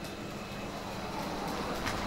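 Low, steady workshop background noise, with a faint metal clink near the end as a steel gear shaft is lifted from a pile of shafts.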